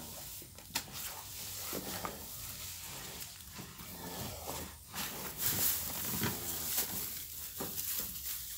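Cow calving, giving several short, low groaning calls while birth fluid splashes and hisses onto the wet ground, loudest about halfway through.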